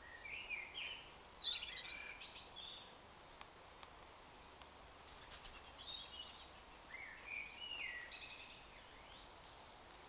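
A songbird singing two phrases of varied, quickly changing high notes, one at the start and another about five and a half seconds in, over a faint steady background hiss.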